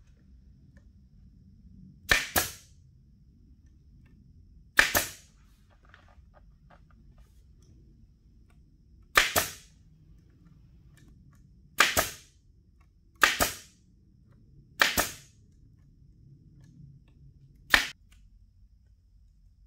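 Pneumatic upholstery stapler firing staples through faux-leather vinyl into a wooden console: seven sharp shots at uneven intervals, each with a brief hiss of air after it.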